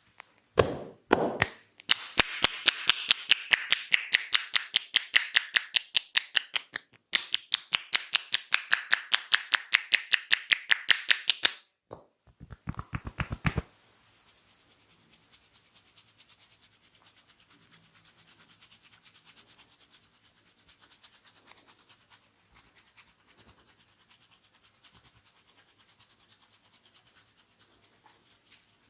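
Massage percussion: hands striking the body in a fast, even rhythm of sharp claps, about six a second, broken by two short pauses. It is followed by soft scratching and rubbing of hands over skin and hair.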